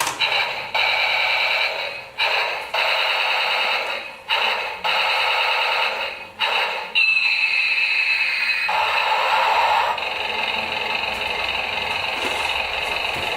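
RC toy tank's built-in electronic sound effects: several short bursts of very rapid rattling that start and stop, then a falling tone about seven seconds in, followed by a steady buzzing effect.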